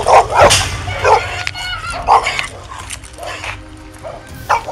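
A dog barking loudly, several barks in quick succession in the first second, then single barks spaced out, with a quieter stretch before one more bark near the end.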